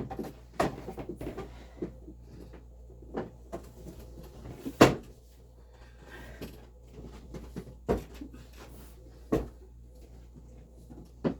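Scattered knocks and clunks of a desk being turned over and shifted, with its drawer sliding out and bumping; the loudest knock comes about five seconds in.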